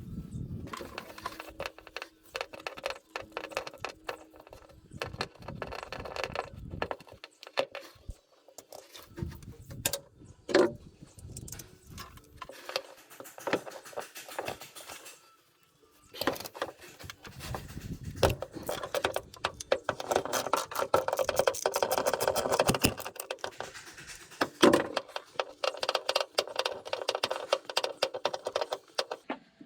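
Metal hand tools clinking, knocking and rattling while unbolting and pulling the shifter assembly off the top of a gearbox, with a busier run of clattering past the middle.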